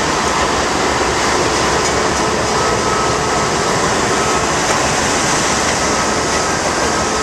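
Norfolk Southern diesel-electric locomotives passing at close range, engines running and wheels rolling on the rails as a loud, steady rumble.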